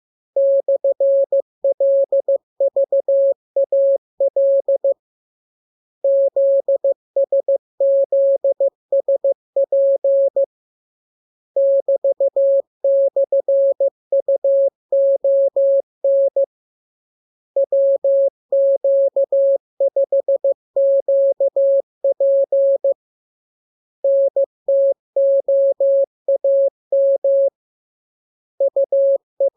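Morse code (CW) sent as a single steady tone just under 600 Hz, keyed into rapid dots and dashes. The characters come in runs of a few seconds, each followed by a pause of about a second.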